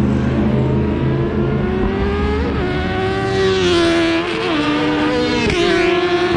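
Two racing motorcycles at high revs under full throttle, coming closer along the straight. The engine note climbs and drops briefly several times as they shift up, growing louder and brighter as they near.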